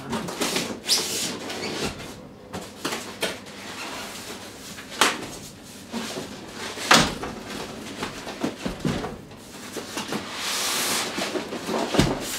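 A large cardboard box and foam packing being handled and shifted: rubbing, scraping and rustling, with a few sharp knocks and a longer sliding rub near the end.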